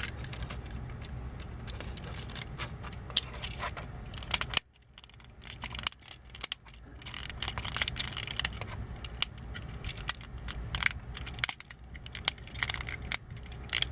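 Small hard-plastic clicks and rattles of a bootleg Transformers Rumble cassette figure being handled and pushed into the chest compartment of a bootleg Soundwave toy. The sound is a scatter of short clicks, with a brief lull about five seconds in.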